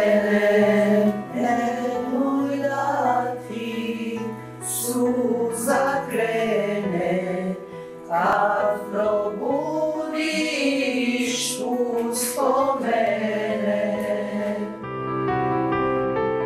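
A small group of women singing a hymn together, with clear hissed s-sounds in the words. Near the end the singing gives way to soft instrumental music.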